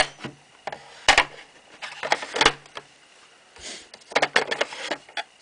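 Plastic drip tray and used-capsule container of a Nespresso espresso machine being handled, pulled out and slid back: a series of irregular plastic clicks and knocks.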